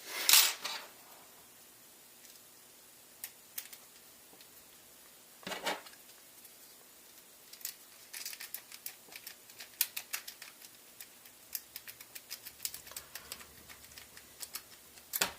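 Small metallic clicks and scratching of a lock pick and tension wrench working inside a Master Lock padlock: a few separate clicks, then from about halfway a quick, irregular run of ticks as the pins are worked.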